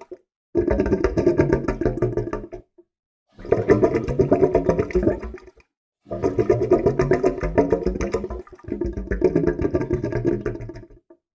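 Water gurgling in four separate bursts of about two seconds each, with short silences between them. Each burst is a rapid, low bubbling flutter.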